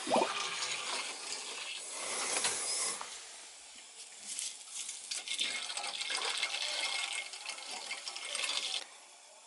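Liquid rushing through the hydronic boiler's hose and valve, an uneven hiss of flow that stops abruptly near the end.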